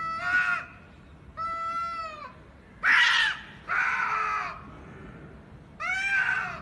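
A cat meowing over and over: about six loud meows roughly a second apart, each rising and then falling in pitch.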